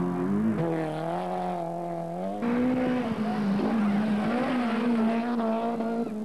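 Rally car engines held at high revs as the cars speed along a gravel stage. The note stays fairly steady and jumps abruptly twice, about half a second in and about two and a half seconds in, as a different car takes over.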